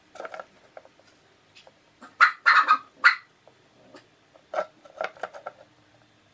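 Short animal calls, several in quick succession, in three clusters: near the start, around two to three seconds in, and around five seconds in.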